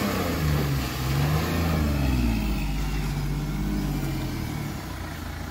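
Mahindra Bolero SUV's diesel engine working through mud, its pitch rising and falling twice as the throttle is opened and eased, then dropping a little quieter near the end.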